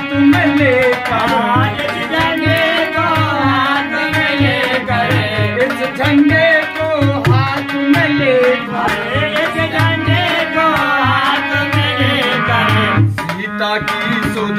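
Harmonium accompanying a singing voice in an Indian devotional song, with a hand drum beating a steady rhythm.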